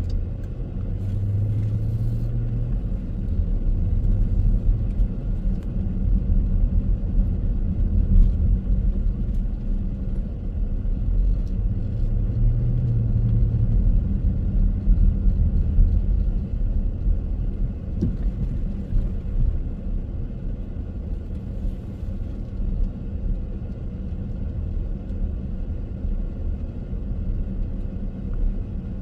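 Car driving on city streets: a steady low rumble of engine and road noise, with a somewhat stronger low drone coming in briefly twice.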